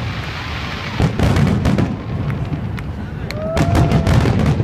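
Aerial firework shells bursting over a low, continuous rumble, with sharp bangs about one and two seconds in and a quick run of crackling reports after three and a half seconds. A short whistling tone rises and holds just past three seconds in.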